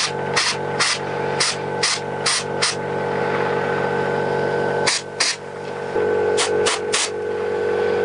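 Short blasts of compressed air from a hand blow gun, about a dozen quick bursts in three bunches, blowing dirt out of a chainsaw fuel filter. Under them the air compressor hums steadily, a little louder from about six seconds in.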